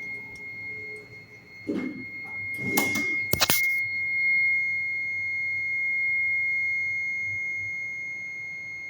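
An unidentified building alarm sounds a steady, high-pitched tone throughout, swelling louder after the middle and then slowly fading. About two to three and a half seconds in, a few knocks and a sharp click sound over it.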